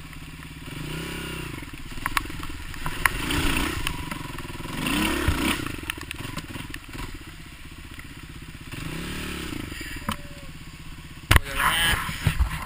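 Dirt bike engine running as it is ridden along a trail, the pitch rising and falling with the throttle about four times. A few sharp knocks and clatter near the end.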